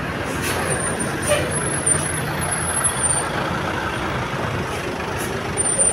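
A large bus's diesel engine running close by with road and traffic noise, steady throughout, with a few faint high-pitched squeals.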